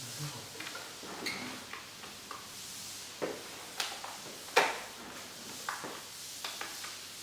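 Scattered light clicks and taps from handling brittle pieces of dried plaster while gluing them onto the fireplace, with one sharper knock about four and a half seconds in.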